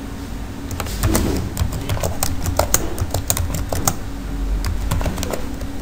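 Computer keyboard typing: a quick, irregular run of keystrokes that starts under a second in and stops near the end, over a steady low hum.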